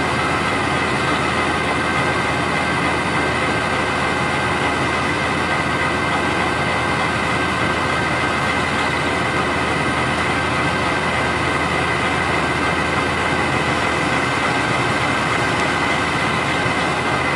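Urraco 75 mobile shredder running steadily as it processes wood waste: an even machine drone with a steady high whine over it.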